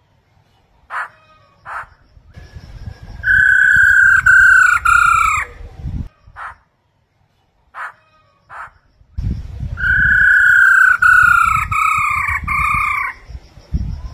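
Black-throated laughingthrush calling: a few short single notes, then two runs of repeated harsh notes, each run about three seconds long and each note falling slightly in pitch, with a low rumble beneath the runs.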